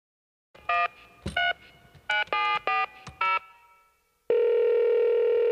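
Telephone keypad beeps as a number is dialled: six short tones with a click among them. About a second later a steady, continuous phone tone comes in.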